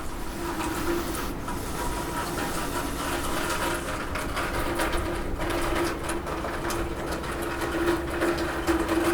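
Rain falling on a roof: a dense, irregular patter of drops, with a steady low hum underneath.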